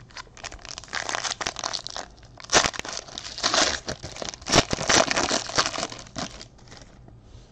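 Foil trading-card pack wrapper being torn open and crinkled by hand, in irregular crackling bursts that die away near the end.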